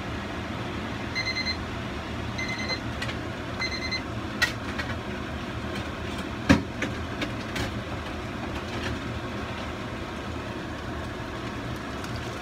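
Three short electronic beeps about a second apart over a steady rumbling hiss, followed by a few scattered clicks and knocks, the loudest about six and a half seconds in.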